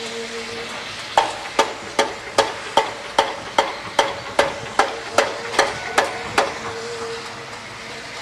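A rapid, even series of metal-on-metal hammer strikes, about fourteen blows at roughly two and a half a second, each with a short ring. They start about a second in and stop about six and a half seconds in, over a faint steady hum.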